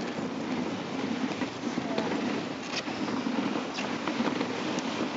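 Dog sled moving over snow: a steady hiss of the runners, with a few faint clicks.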